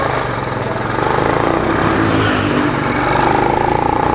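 Motorstar motorcycle engine running steadily while being ridden along a road, with a broad rush of road and wind noise over it.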